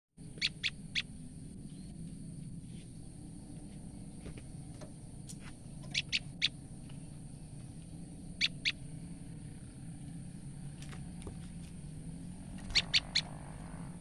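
Female common tailorbird giving short, sharp calls in quick groups of two or three, four times over, the alarm calls that a frightened female makes. A steady low hum and a faint high hiss run underneath.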